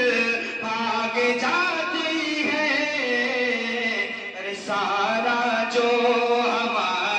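A man singing a Manqabat, an Urdu devotional song in praise of Ali, into a microphone, drawing out long, wavering ornamented notes.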